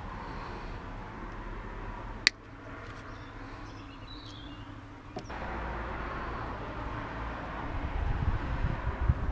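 Plastic fuel-injector wiring connector being handled, with one sharp click about two seconds in. Steady background noise throughout, with a low rumble rising about five seconds in and a few dull thumps near the end.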